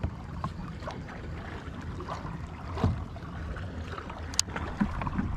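Water lapping against a fishing kayak's hull, with a steady low wind rumble and a few light clicks and knocks of gear on the boat.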